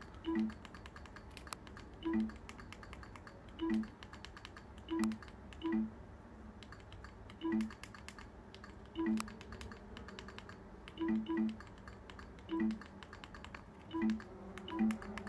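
Roku remote buttons pressed one by one to enter a Wi-Fi password on the on-screen keyboard, each press answered by a short, low, falling two-note blip from the menu sound. About a dozen presses at an uneven pace of roughly one a second, some in quick pairs.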